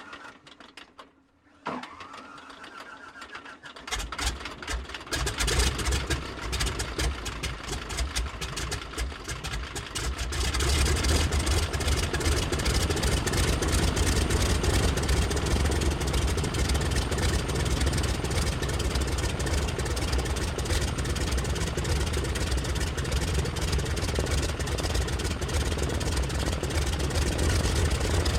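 Single-engine propeller plane's piston engine starting: a brief rising starter whine, then the engine catches about four seconds in and runs unevenly, settling into a steady, louder run from about ten seconds in.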